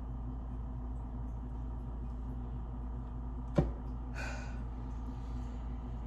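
Steady low hum, with one sharp knock about three and a half seconds in and a brief soft rustle just after.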